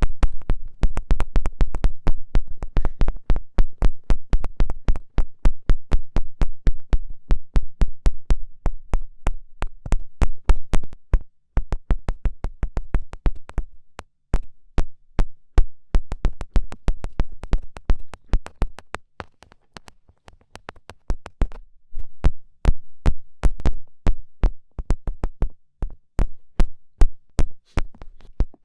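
Rapid, irregular run of sharp fingertip taps, several a second, with a dull low thump under many of them; it breaks off for a moment a few times.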